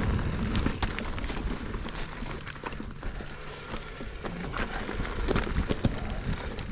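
Mountain bike rolling over a frosty dirt trail: tyres crunching and crackling with scattered small clicks and rattles, over a steady low rumble of wind on the microphone.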